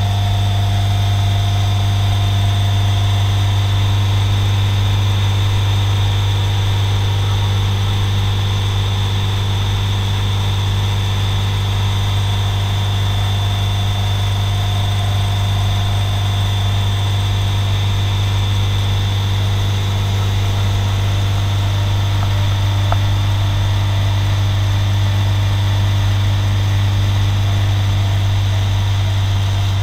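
Moragon M-1 light aircraft's piston engine and propeller running at steady power in the climb after takeoff, heard from inside the cockpit: a loud, even low hum that holds the same pitch throughout.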